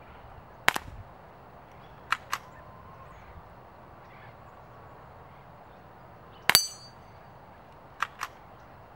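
Four quiet .22 rimfire shots from a Ruger 10/22 Takedown firing Aguila Super Colibri low-noise rounds. Most come as a sharp crack followed a fraction of a second later by a second crack or smack. The loudest, about six and a half seconds in, has a short metallic ring, as of a bullet striking the steel spinner target.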